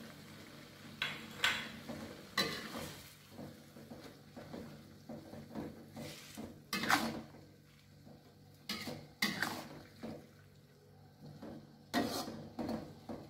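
Long metal spatula scraping and clanking against a metal wok while stir-frying water spinach in a little broth, in irregular strokes about a second apart, the loudest about seven seconds in.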